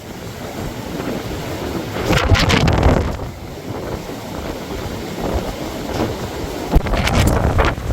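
Blizzard wind blowing hard and buffeting the microphone, a rushing roar that swells in strong gusts about two seconds in and again near the end.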